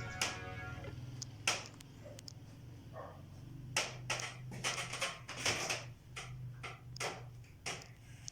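Irregular light clicks and knocks, about a dozen spread unevenly, like small objects being handled, over a steady low hum.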